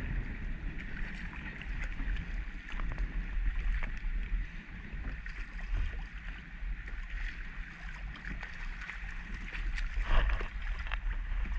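Water lapping and splashing against a fishing kayak's hull while a small snook thrashes at the surface on the line, with wind rumbling on the microphone. A louder splash comes about ten seconds in as the fish comes out of the water.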